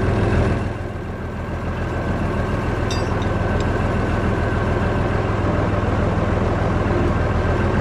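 Massey Ferguson 95X tractor's diesel engine running steadily with a low, even note; it dips slightly about a second in, then holds.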